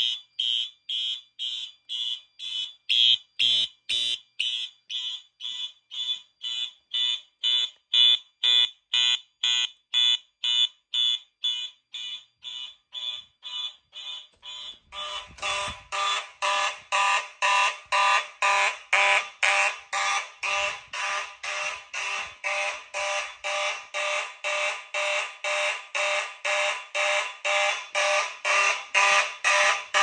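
Fire alarm horns sounding in even pulses about twice a second, a pulsed alarm pattern from a test of a 1990s-style fire alarm panel. About fifteen seconds in, a louder, fuller-toned horn takes over.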